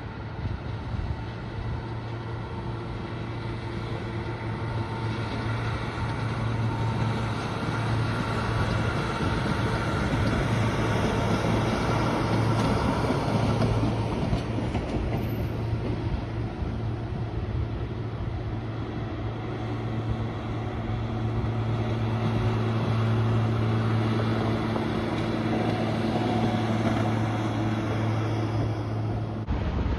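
Diesel rail grinder running steadily on the tracks: a continuous low engine hum with a few held tones over mechanical noise, growing louder over the first several seconds as it approaches, then holding.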